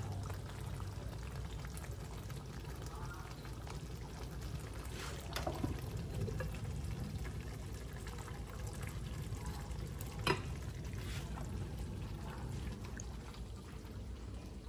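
Faint bubbling of a stew simmering in a frying pan, with a sharp clink about ten seconds in as the glass lid goes back onto the ceramic bean pot.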